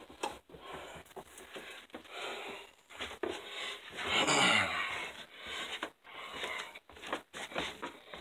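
Heavy breathing and panting going on through the stretch, with a short falling groan about four seconds in.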